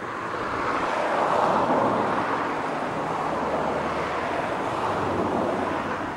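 Jet engines of a TAM twin-engine airliner running on the runway, heard as a broad rushing noise that swells about a second in and eases slowly near the end.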